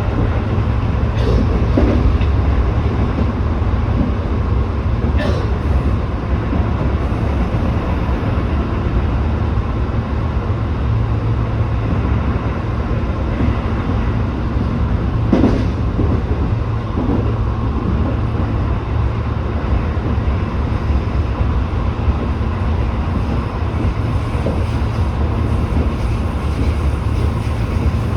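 Tobu 8000-series electric commuter train running at speed: a steady low rumble of wheels on rail, with a few sharp knocks from the track about 1, 5 and 15 seconds in.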